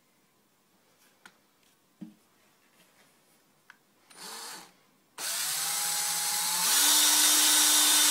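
Cordless drill with its bit on stainless steel: a few faint clicks, a brief blip of the motor about four seconds in, then it runs steadily from about five seconds in and gets louder about a second and a half later as the bit starts cutting into the stainless steel.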